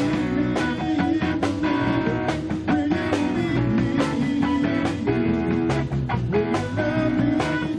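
Live rock band playing an instrumental passage led by guitar, with drums keeping a steady beat.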